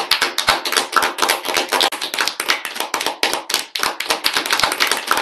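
Applause from many people clapping at once over a video call: a dense, continuous patter of hand claps.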